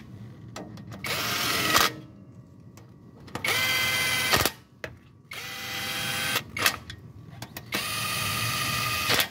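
Cordless impact wrench spinning bolts into a new balancer shaft assembly under a Toyota 2AZ-FE engine. It runs in four short spells of steady motor whine, with light clicks of the socket between them.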